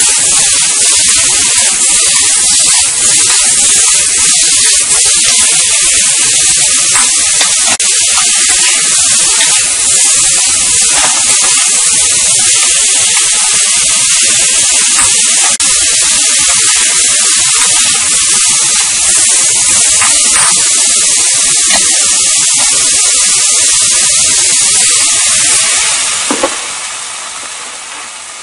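Beef cubes with ginger and scallion sizzling loudly in a hot wok as a metal spatula stirs and scrapes them. Near the end there is a sharp click and the sizzle drops to a quieter steaming hiss.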